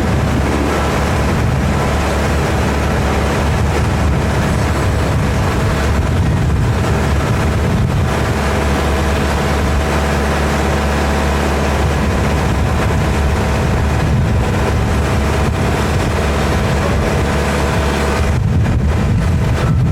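A glass-bottom tour boat's engine running steadily under way, a constant low drone with a faint steady hum over it.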